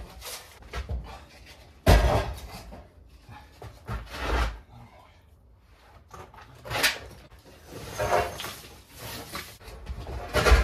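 A heavy entrance door being shifted and set into a doorway: irregular thumps, knocks and scrapes against the frame and floor, the loudest knock about two seconds in and another near the end.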